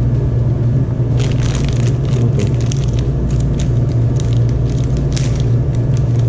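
Clear plastic zip-lock bag crinkling in the hands as it is handled and opened, a string of short irregular crackles starting about a second in. Under it runs a loud steady low hum.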